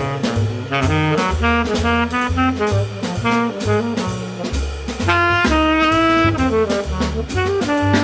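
Jazz quartet playing: trumpet and baritone saxophone carrying a melody line over double bass and drum kit, with the bass moving note by note.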